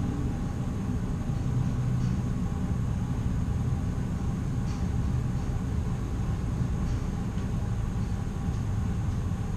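Otis high-speed elevator car descending, heard from inside the cabin as a steady low rumble.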